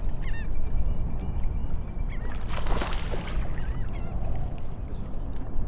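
Waterfowl honking briefly near the start over a steady low wind rumble on the microphone, with a short rushing hiss about two and a half seconds in.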